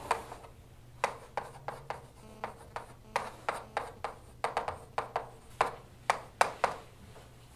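Chalk writing on a blackboard: a quick run of sharp taps and short scratches as symbols are written, about three a second, starting about a second in and stopping shortly before the end.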